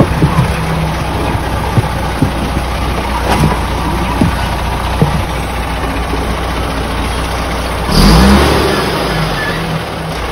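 Truck engine idling steadily, with scattered light clicks, and a louder low rumble swelling up about eight seconds in before easing off.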